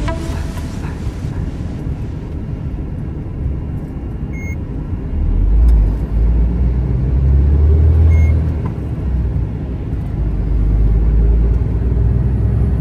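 Semi-truck driving on the highway, heard from inside the cab: a steady low engine and road drone that grows heavier from about five seconds in.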